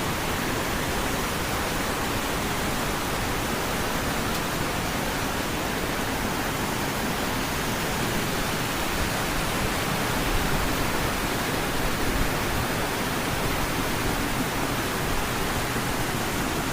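Steady rushing noise of the Allerheiligen waterfalls, water pouring down the cascade.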